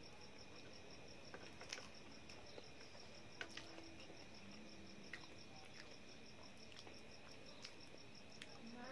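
Faint, rapid, high-pitched pulsing trill of a cricket, steady throughout, with a few light clicks of fingers against a steel plate as rice is mixed by hand.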